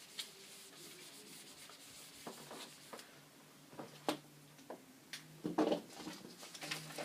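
Handwriting: faint scratching and rubbing strokes of a pen or marker on a writing surface, with a few light taps. One sharper stroke comes about four seconds in, and the strokes come thicker near the end.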